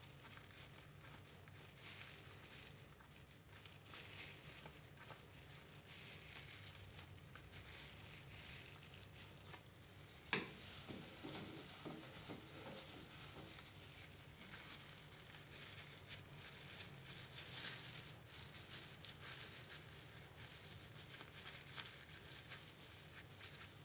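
Faint rustling and crinkling of a banana-leaf wrapper being handled, filled and pressed, with a single sharp click about ten seconds in and a low steady hum underneath.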